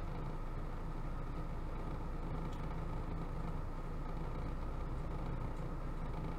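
Steady low rumble with a light hiss, unchanging throughout, with no distinct events: background room noise.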